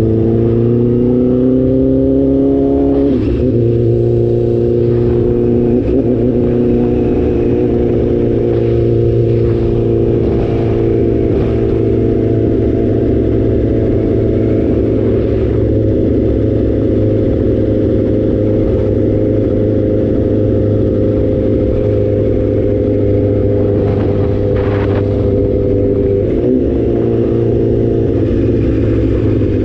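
Motorcycle engine heard from the rider's seat, pulling up through the revs over the first few seconds with short breaks about three and six seconds in, like gear changes. It then holds a steady cruising note, and the revs drop near the end as the bike slows.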